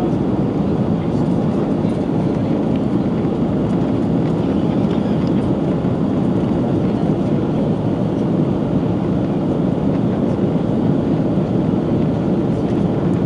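Airbus A330-300 cabin noise during the climb after takeoff: a steady, deep rush of engine and airflow noise heard inside the cabin, with no distinct events.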